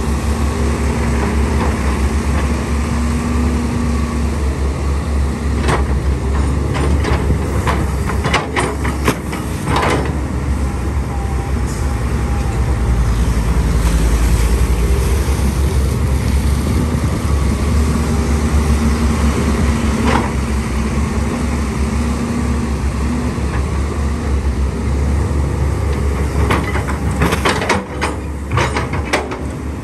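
Cat 320D hydraulic excavator's six-cylinder diesel engine running steadily under load while it digs in mud and water. Clusters of sharp knocks from the bucket and boom come about a third of the way in and again near the end.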